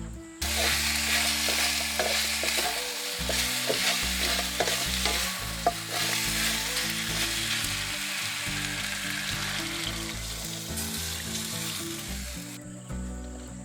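Food sizzling as it fries in a hot pan, stirred with a utensil that clicks and scrapes against the pan. The sizzle starts suddenly about half a second in and stops about a second before the end.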